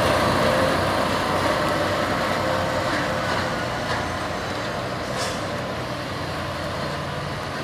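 Heavy truck's diesel engine running steadily and gradually growing fainter, with a brief hiss about five seconds in.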